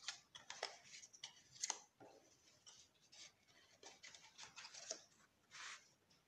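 Cardstock box and a packet of paper tissues being handled: faint, scattered rustles and scrapes of card and paper as the box is opened and the packet slid in and out.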